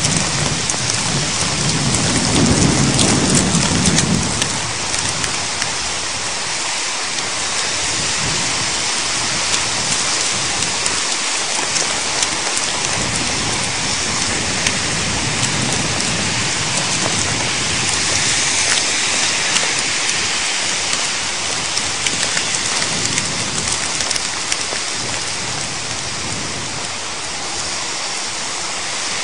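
Thunderstorm downpour of heavy rain and hail, a dense steady hiss full of fine ticks, with a low rumble of thunder about two to four seconds in.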